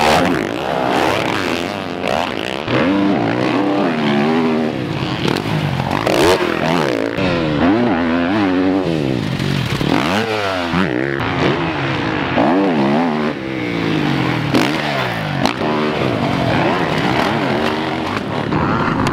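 Motocross dirt bike engines revving hard as bikes race past one after another, pitch rising and falling with each throttle change and shift.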